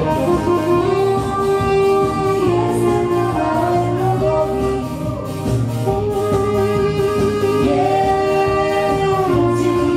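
Band music: a woman singing with saxophone and keyboard, in long held notes.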